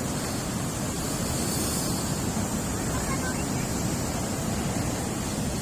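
Steady wash of ocean surf breaking on a sand beach, with wind on the microphone.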